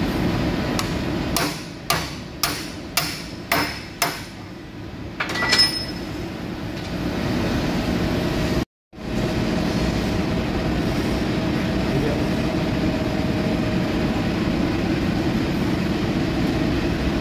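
Steel-on-steel hammer blows on a drift, about six strikes roughly half a second apart, driving a bronze bushing into the boss of a forklift steering axle housing, with one more blow a moment later. After that only a steady low workshop machine hum.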